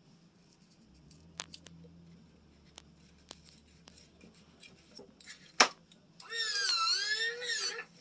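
A cat meows once, a long call that dips and rises in pitch, near the end. Before it come scattered small clicks and one sharp click.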